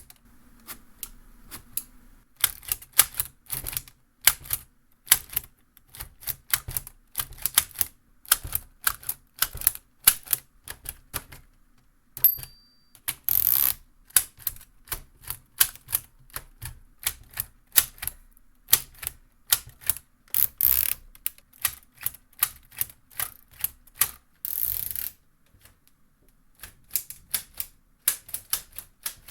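ROKR LK703B wooden model typewriter being typed on: irregular sharp clacks of the type levers striking, two or three a second. About twelve seconds in a small bell rings briefly. It is followed by a longer rasping stroke, and another comes near 25 s, which is the carriage being pushed back for a new line.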